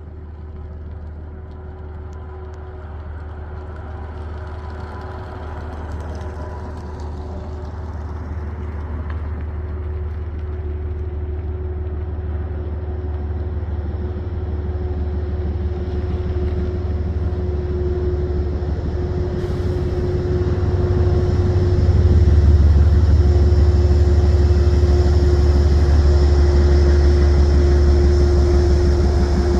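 Metro-North P32AC-DM diesel-electric locomotive drawing in: a low engine rumble with a steady hum that grows louder for about twenty seconds, then holds level as it comes alongside. A faint high whine joins about two-thirds of the way through.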